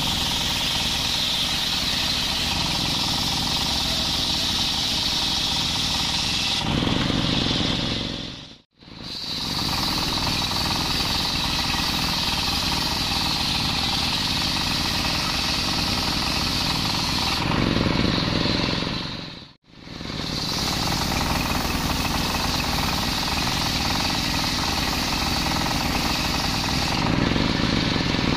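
Large circular saw ripping a coconut log lengthwise: a steady, loud, high-pitched rasp of the blade through the wood. Its tone shifts three times, turning deeper, and the sound cuts out abruptly twice.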